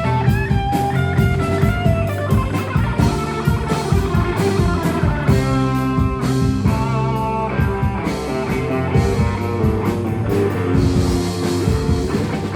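Band playing an instrumental passage: guitar over bass and drum kit, with a steady beat and no singing.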